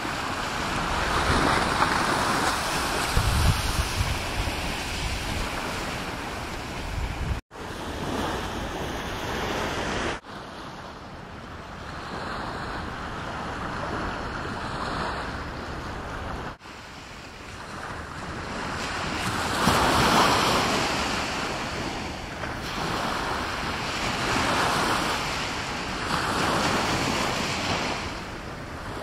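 Sea surf washing and breaking, rising and falling in slow surges, with wind buffeting the microphone, heaviest in the first several seconds. The sound cuts out briefly a few times.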